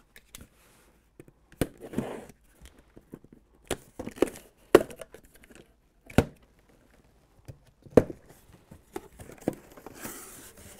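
Hands handling and tearing open a sealed corrugated cardboard shipping case: a string of sharp knocks and scrapes of cardboard, then a tearing rip near the end as the front panel is pulled open.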